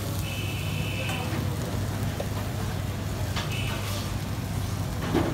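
Busy street ambience: a steady low traffic rumble under a constant hiss, with a short high tone sounding twice and a few sharp clatters.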